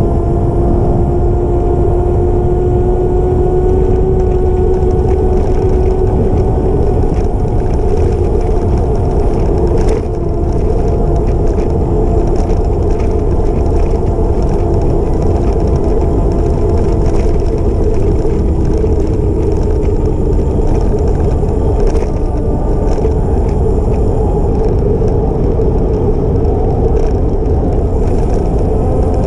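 Riding an e-bike, with wind buffeting the microphone and a steady motor whine that slides slowly lower in pitch and rises again near the end.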